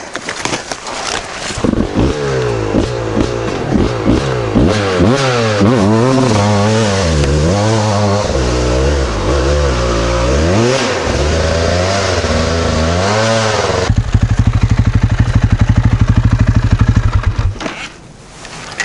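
KTM 450 EXC single-cylinder four-stroke engine revved up and down over and over while the stuck bike is worked up a steep dirt bank. For about three seconds it then holds steady revs with a fast, even throb, and falls away near the end.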